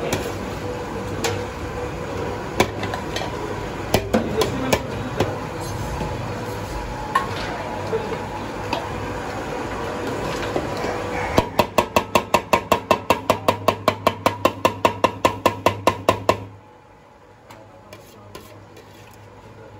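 Clatter of metal kitchen utensils and dishes over a steady hum, then rapid, even metallic strikes at about four or five a second for some five seconds, after which the sound drops suddenly to quieter background noise.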